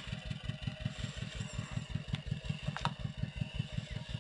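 Small engine running steadily with an even, low thudding beat of about eight beats a second, with a couple of sharp clicks over it.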